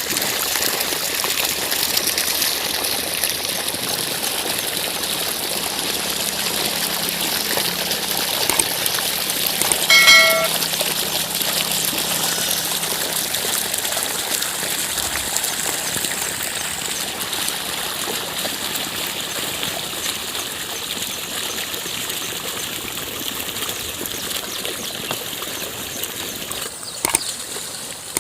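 Steady rushing and trickling of water in a flooded, muddy paddy field. About ten seconds in there is one short, high-pitched tone.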